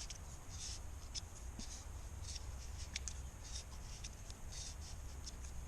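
Thread seal tape being wound around the threads of a pool return fitting by hand: soft, irregular crinkling and rubbing, several small rustles a second.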